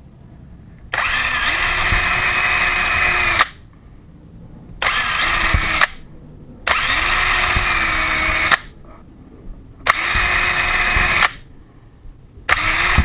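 Cordless drill with a 2 mm twist bit drilling pilot holes through a hollow door, run in five short bursts that each spin up and stop. The pilot holes mark the far side without blowing it out.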